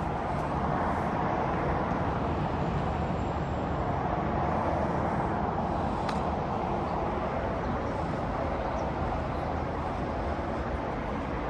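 Steady rush of road traffic, even and unbroken, with one brief tick about six seconds in.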